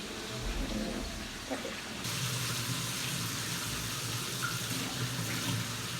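Water running from a kitchen tap into a sink or bowl, starting about two seconds in and then flowing steadily.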